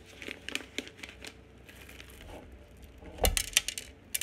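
Paper-and-foil coffee bag crinkling and rustling as it is handled, with small clicks. About three seconds in comes a sharp thump and a quick run of clicks as whole coffee beans begin to tip out of the bag into a cup.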